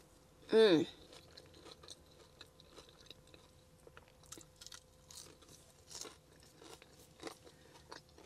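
A short hummed vocal sound falling in pitch about half a second in, then quiet chewing and crunching of french fries with faint scattered clicks.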